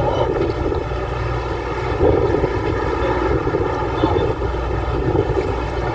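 Boat engine droning steadily, mixed with a rushing noise of wind and water.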